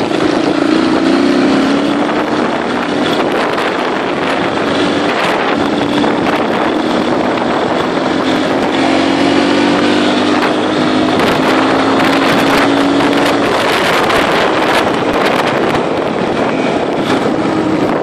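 Dirt bike engine running while riding, its note shifting up and down with the throttle, with wind rushing over the microphone. The engine note fades out about three-quarters of the way through, leaving mostly wind.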